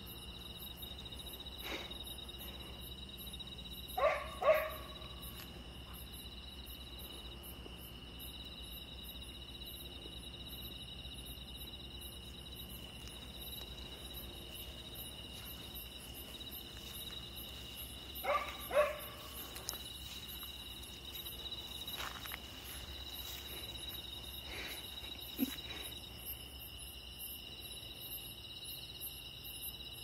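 A dog barking in short pairs, twice: about four seconds in and again about eighteen seconds in, over the steady chirping of crickets.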